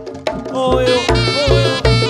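Reog Ponorogo ensemble music. A held, wavering reed melody plays over regular low drum beats, a little more than two a second.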